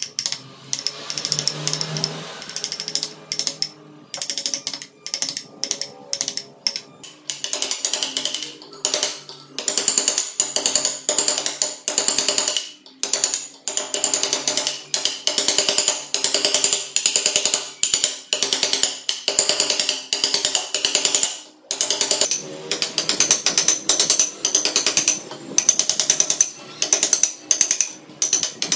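A hand gouge cutting chips from a wooden carving in quick, short strokes, heard as bursts of crisp rapid clicking about a second apart.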